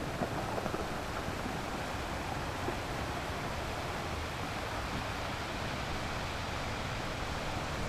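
Steady rush of sea water and wind, with a low rumble underneath.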